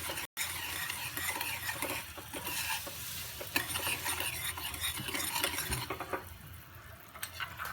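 A spoon stirring and scraping a hot mixture of ghee and melted rock sugar in a small pan, with a light sizzle from the still-hot pan that dies down about six seconds in.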